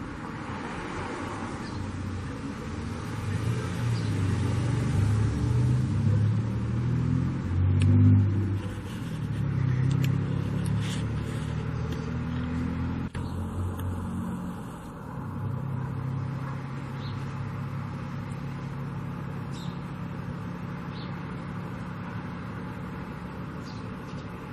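A motor engine running, its low hum rising and falling in pitch and loudness for the first half, then holding steady.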